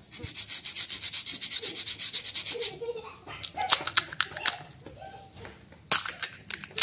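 Crisp fried pani puri (golgappa) shells scraped against each other in the hands, a rapid dry scratching of about ten strokes a second, then cracked open with several sharp crunches about three and a half seconds in and again near the end. The crackle shows how crisp and hollow the fried shells are.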